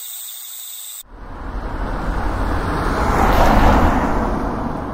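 Night insects chirping, cut off suddenly about a second in, then a car driving by: engine and road noise swell to a peak and fade away.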